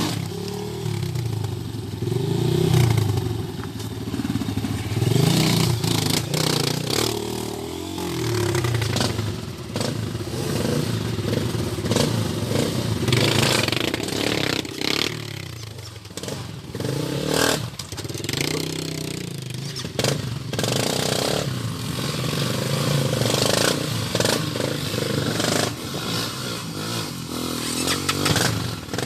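Trail motorcycle engine riding off-road, revving up and easing off over and over as the throttle opens and closes. Many short clattering knocks run through it.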